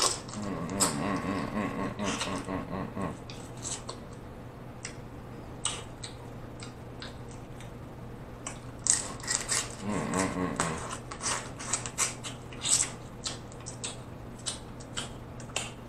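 Close-miked eating of snow crab legs: wet chewing and mouth smacking with many sharp clicks and cracks as the crab meat is picked from the shells, busiest in the second half. A low drawn-out hum sounds over the first few seconds and again briefly around ten seconds in.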